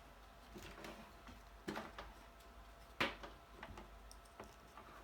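Cardstock pieces being handled and pressed together on a craft table: light paper rustling with a sharp click just under two seconds in and a louder tap about three seconds in.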